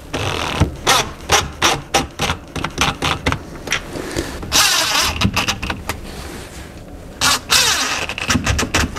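Cordless DeWalt drill/driver driving screws into a cabinet door hinge. The motor runs in short trigger bursts with sharp clicks of the bit and screws against the metal hinge, and runs longer twice, about halfway through and again near the end.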